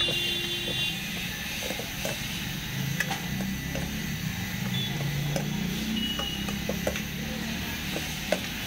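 Metal spoon stirring and scraping in a stainless steel bowl of soya chaap and cream sauce, with scattered clicks of the spoon against the bowl over a steady low hum. A high buzzing tone stops within the first second.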